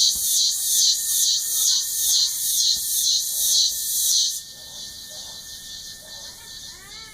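Cicadas buzzing loudly in a high-pitched, pulsing drone, about two and a half pulses a second, that stops abruptly about four seconds in, leaving only a faint high hiss.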